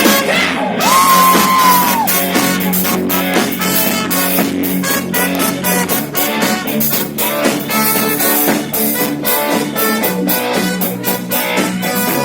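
A live rock band playing an instrumental passage: the drum kit keeps a steady beat under electric guitar and a moving bass line, with one long held high note about a second in.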